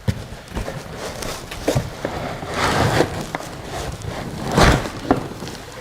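Handling noise from unpacking a 3D printer: a few short knocks and clunks as parts are lifted out of the box, with two longer rustling swells of packing material.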